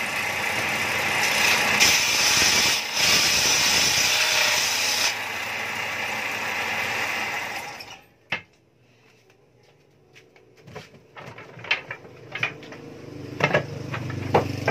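Table saw running with its blade spinning free, a loud steady noise that falls away sharply about eight seconds in. After that come separate hollow knocks and clatter of cut wooden slats being handled, louder near the end.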